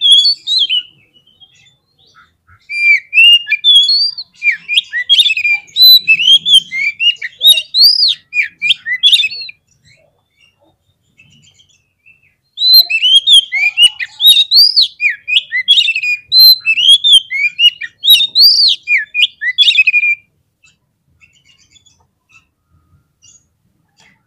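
Oriental magpie-robin (kacer) singing fast, varied whistled phrases of rising and falling notes, in two long bouts separated by a pause of about three seconds and dying away about four seconds before the end. It is the excited 'fighter' song that keepers play as a lure to provoke other magpie-robins.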